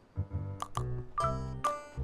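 Background music: a bouncy tune of short, ringing notes over a low bass line, after a brief pause right at the start.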